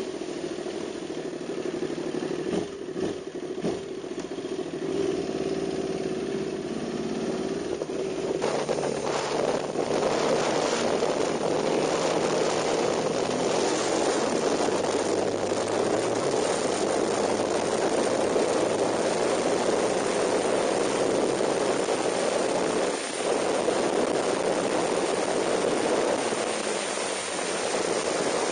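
KTM 990 Super Duke's V-twin engine running at low revs, then from about eight seconds in the bike accelerates and runs at speed, the engine note mixed with steady wind rush on the bike-mounted microphone.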